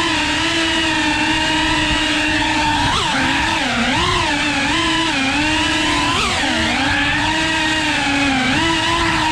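FPV racing quadcopter's motors and propellers whining. The pitch dips and swings up and down several times as the throttle changes.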